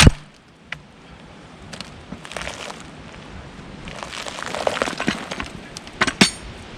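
Cant hook working a large cherry log to roll it. A loud sharp knock at the start, then scraping and crunching of bark and wood as the log is levered and shifts, and two sharp knocks near the end.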